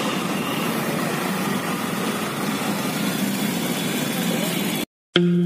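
Steady outdoor street noise with a vehicle engine running. It cuts off suddenly near the end, and music starts.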